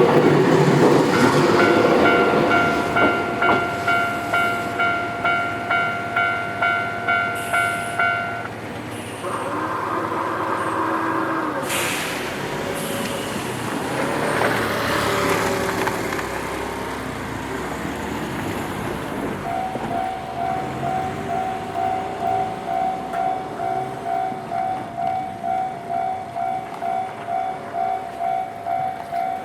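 Japanese railway level-crossing alarm bell ringing at about two strokes a second as a train passes, rumbling over the rails; the bell stops about eight seconds in. A horn sounds for about two seconds, and about twenty seconds in the crossing alarm starts ringing again with a lower ring.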